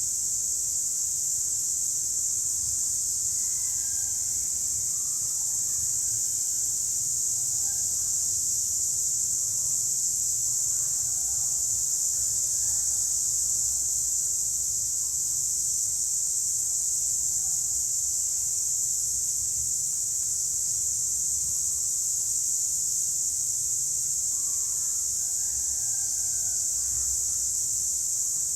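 A chorus of cicadas making a loud, steady, high-pitched buzz that never breaks. Fainter chirping calls come and go underneath.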